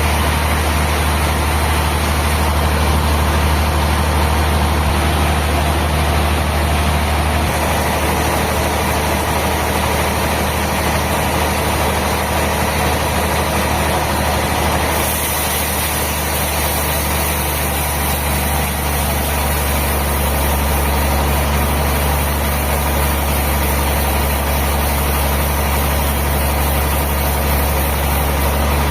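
Sawmill machinery running steadily with an even, low engine hum. The tone shifts slightly about seven seconds in and again about halfway through.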